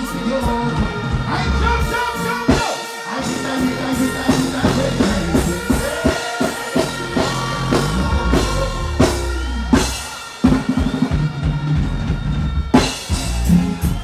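Live reggae band music over a stage sound system, with drum kit strikes (snare and bass drum) under sustained keyboard-like tones.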